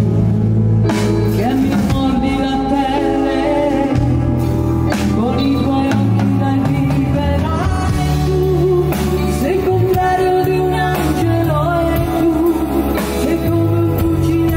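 Live pop band playing, with a woman singing lead: electric bass, electric guitars, keyboards and drum kit under the vocal line.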